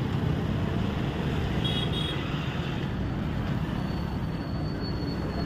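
Steady low rumble of street traffic, with two short high-pitched beeps about a second and a half to two seconds in.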